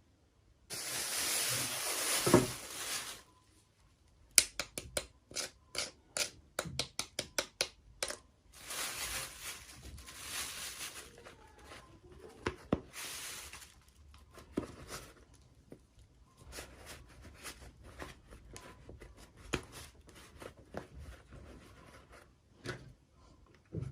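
Unboxing handling noise: a few seconds of packaging being torn or crinkled, then a quick run of sharp clicks and taps of small plastic pieces, another stretch of tearing, and scattered taps after that.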